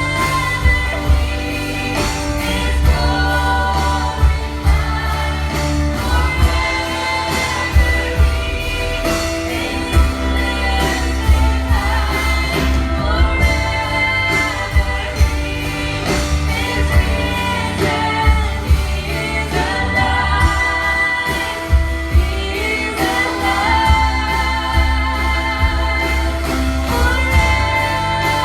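A worship band playing a song with singers, to a steady beat and bass: a live congregational worship song.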